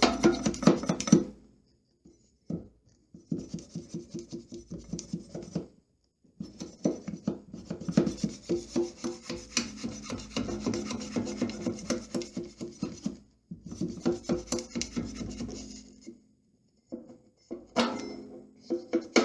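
Brush rubbing over lining paper in quick repeated strokes, about three or four a second, in runs of a few seconds broken by short pauses.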